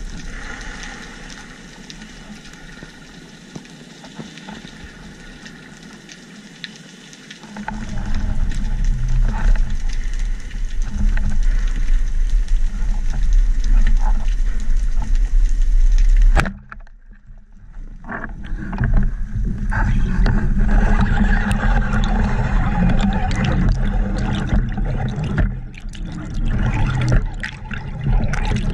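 Underwater water noise picked up by a speargun-mounted action camera as the freediver swims, with scattered clicks. A heavy low rush of water sets in about a quarter of the way through, cuts out abruptly about halfway, then returns within a couple of seconds.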